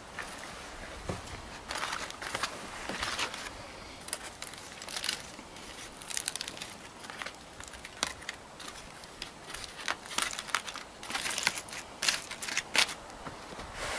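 Aluminium foil crinkling and tearing as a foil packet is unwrapped by hand, in a run of short, crisp crackles.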